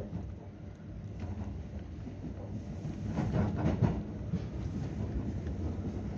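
Running noise inside a JR West 225-series electric train in motion: a steady low rumble of wheels on rail, with a louder spell of clattering about three to four seconds in.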